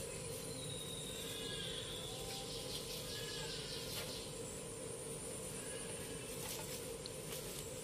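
Faint, thin mews of a calico kitten, a few short calls, over a steady hum.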